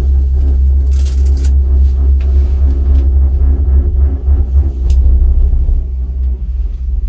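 Loud, steady low rumble of a moving gondola cabin riding the haul cable, with a few light clicks and rattles and a short hiss about a second in.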